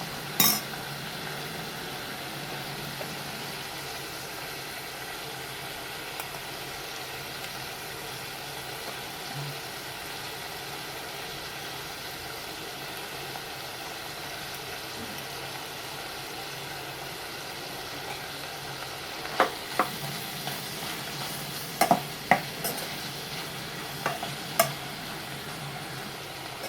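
Vegetables sizzling steadily as they stir-fry in a pan, not yet fully cooked. Utensil knocks on the pan once just after the start, then a run of clatters in the last several seconds as the food is stirred.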